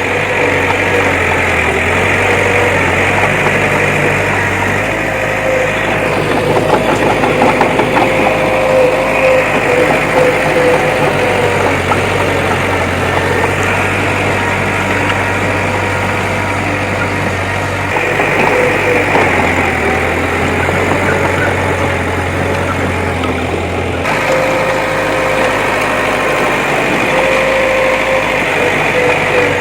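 Diesel engine of a bulldozer running steadily, its low note shifting every few seconds as the load changes.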